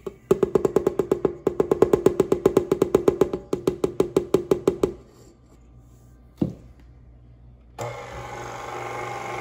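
Music: a fast, even percussive beat of clicks over a low note, about eight a second, for about five seconds. After a pause and a single thump, a stand mixer's motor starts up near the end and runs steadily.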